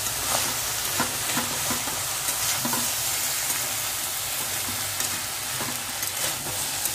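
Cubed potatoes and green beans sizzling in a metal kadai while a spatula stirs and turns them, with repeated scrapes and light knocks against the pan. The vegetables have begun to catch on the bottom of the pan.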